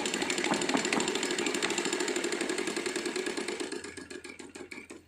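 Sewing machine running fast, a rapid even clatter that slows and fades out near the end as the machine coasts to a stop. It has just had its gears oiled; its upper gear is worn.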